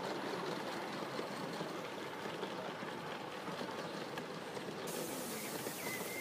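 Gauge one live steam model train running past, its long rake of coaches rolling by with a steady, dense rattle of wheels on the track. A brief chirp comes near the end.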